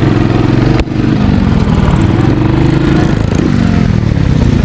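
Motorcycle engine revving up and down at low speed, heard close from the bike being ridden. Its pitch rises and falls several times, with a sharp break a little under a second in.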